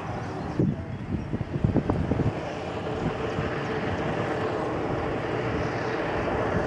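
Personal watercraft engine running steadily at high revs, driving water up the hose to a flyboard. Wind buffets the microphone a few times in the first two seconds.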